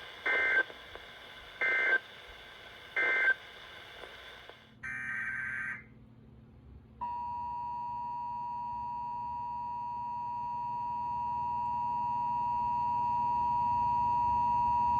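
Emergency Alert System signals from a weather radio broadcast. First come three short bursts of SAME data tones, the end-of-message code, then another one-second data burst about five seconds in. From about seven seconds the steady 1050 Hz NOAA Weather Radio warning alarm tone sounds, growing louder toward the end.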